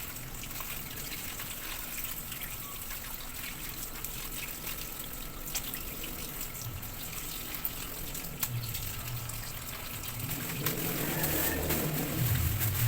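Water running from a tap while raw chicken and fish are rinsed, with light clicks and knocks of handling; the flow gets louder and fuller near the end.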